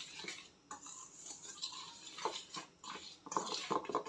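A utensil stirring dry flour, yeast, salt and sugar together in a mixing bowl, with irregular scraping and clinking against the bowl.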